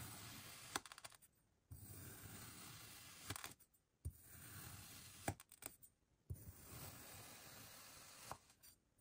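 Kinetic sand being cut and squished: soft crunching and scraping with a few sharp clicks of a tool. It comes in short stretches that break off abruptly into brief silences.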